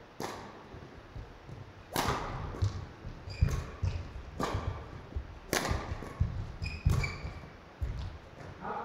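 Badminton rally: sharp racket hits on the shuttlecock about every one to one and a half seconds, echoing in a large hall. Between the hits come short squeaks of shoes on the court floor and thuds of footfalls.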